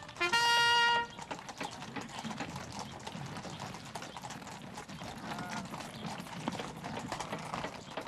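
A trumpet call ends on a held note about a second in. Then the hooves of several horses clatter irregularly on hard, snow-dusted ground as mounted riders move off at a walk and trot.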